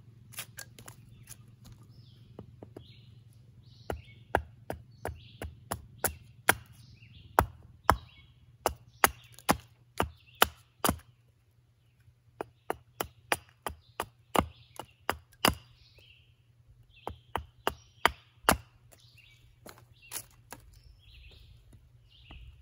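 Axe chopping into a catalpa wood billet, hewing a spoon blank: a run of sharp, irregular chops, about one to two a second, broken by a few short pauses.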